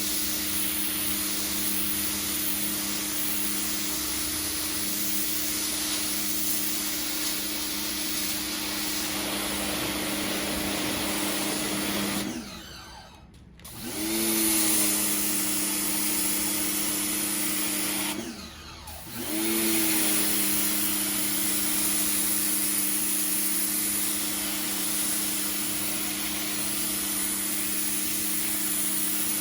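Pressure washer running and spraying, a steady motor-and-pump hum under a hiss of water jet. It stops twice, for a second or so each time, about halfway through and again a few seconds later, then starts up again.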